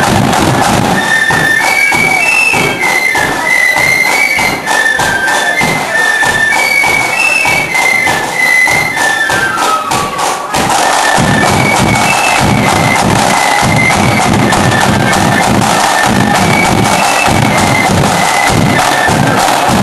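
Marching flute band playing: high flutes carry a quick tune over steady snare drum rolls and bass drum beats. A little before halfway the flutes run down a falling phrase, and then the drums come through heavier.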